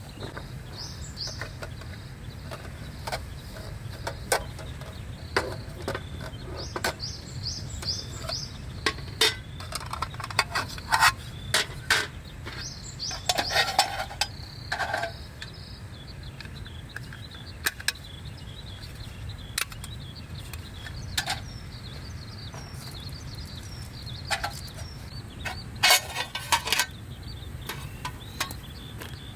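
Outdoor camp ambience: a steady low rumble with scattered sharp clicks and clinks, a few coming in quick clusters, and short runs of high chirps now and then.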